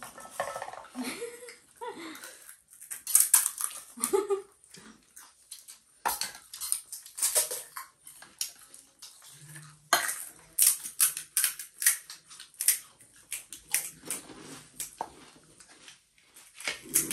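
Close-up eating of pani puri and chatpate: crisp crunching and wet chewing in short, irregular bursts, with spoon and plate clinks and a few brief vocal sounds.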